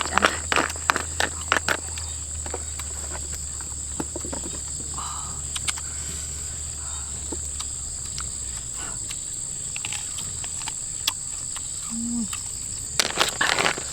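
Insects shrilling with a steady high-pitched drone, with scattered sharp clicks and taps that come thickest in the first two seconds and again near the end.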